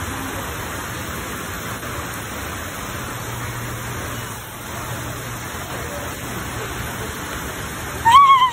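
A steady hiss of background noise, then near the end a short, high-pitched, wavering cry of surprise as the hidden arrival is revealed at the table.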